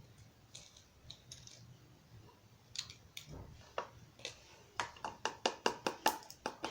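Scattered clicks, then a quick run of sharp taps at about five a second over the last two seconds: a utensil clicking against a plastic container as paint is stirred into slime.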